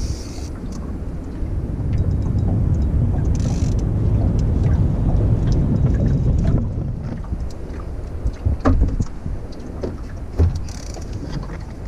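Wind rumbling on the microphone aboard a small fishing boat, swelling for a few seconds in the middle. Two sharp knocks come in the last few seconds.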